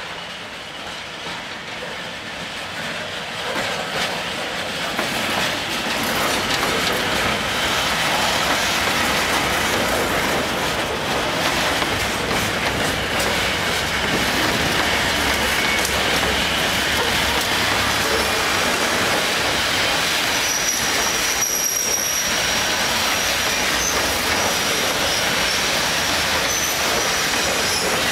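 Freight hopper wagons rolling past on steel rails: the rolling noise builds from a distant rumble to a loud, steady rumble as the wagons reach and pass close by. About two-thirds of the way through, a thin, high metallic squeal from the wheels sets in.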